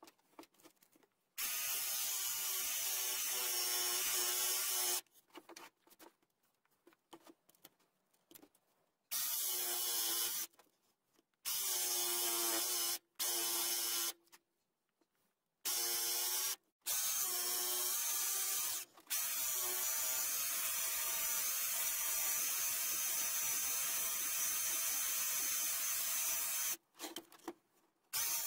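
Erbauer electric jigsaw cutting through chipboard kitchen worktop, its motor and blade running in a series of short cuts that start and stop several times, then one long cut of about eight seconds near the end.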